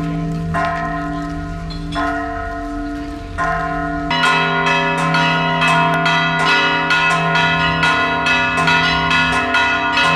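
Church bells ringing: single strokes a little over a second apart, then about four seconds in a fast, continuous peal of about three strokes a second, the tones ringing on between strikes.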